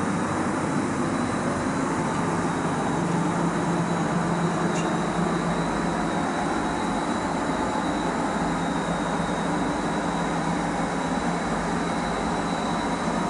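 Paint spray booth's ventilation and extraction fans running: a steady rush of air with a low hum and a thin high whine.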